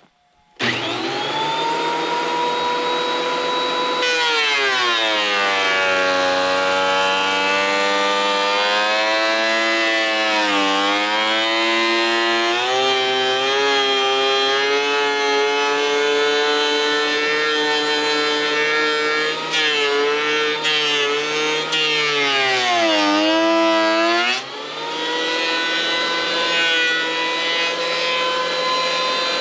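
Electric woodworking power tool starting up and spinning to a steady whine, then dropping in pitch and labouring for about twenty seconds as it cuts through a board. Its pitch rises back to free-running speed near the end.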